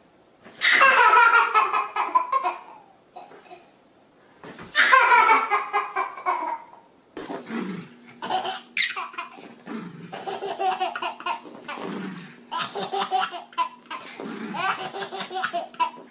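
Baby laughing hard: two long belly-laugh fits in the first half, then a run of shorter, quicker laughs.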